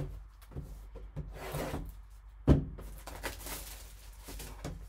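Cardboard trading-card box being handled and opened: cardboard rubbing and sliding as the lid is lifted off, with one sharp knock about two and a half seconds in and a few lighter taps.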